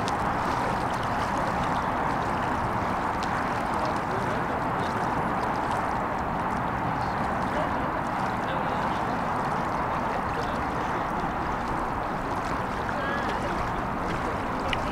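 Model racing boat engines buzzing steadily, heard from afar as an even drone with no clear pitch.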